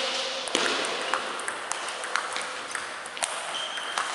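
Table tennis rally: a celluloid ball clicking off paddles and the table, about two hits a second, six or so in all, stopping just past three seconds in. A short high squeak follows near the end.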